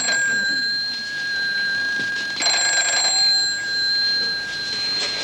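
Ambulance station's emergency call telephone ringing: a steady, high-pitched alarm tone that holds on, with a louder burst about two and a half seconds in.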